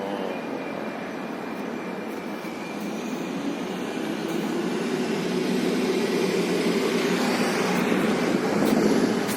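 Cat 415 backhoe loader's diesel engine running steadily, growing louder over the second half.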